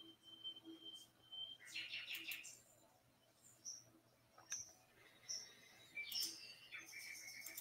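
Birds singing faintly: scattered short high chirps, with a rapid trill about two seconds in and another near the end.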